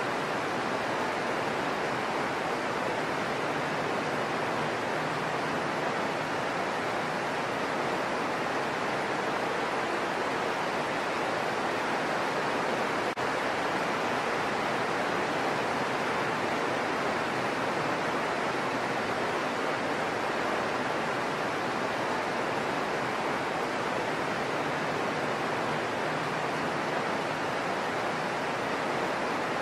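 Heavy rain falling steadily on broad leaves and foliage, an even, unbroken hiss.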